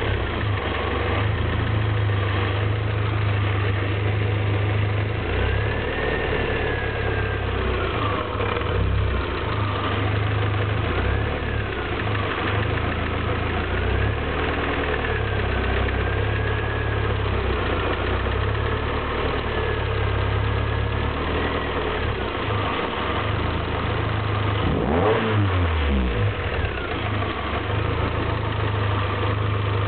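Lotus Elise 111S's 1.8 Rover K-series VVC four-cylinder engine running at low revs, its pitch rising and falling slowly, with a quick rev up and back down about 25 seconds in. From a little past halfway, around 1500–1800 rpm, there is a slight ticking that is difficult to hear and that the owner can't figure out.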